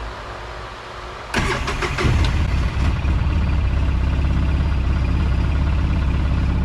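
2010 Polaris RZR 800S twin-cylinder engine cranked by its starter about a second in, catching almost at once and then idling steadily.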